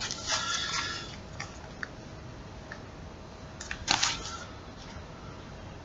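Handling noise: soft rustles and light taps as hands move about a rifle and pick up a camouflage-covered tablet case, with a louder scuffing rustle about four seconds in.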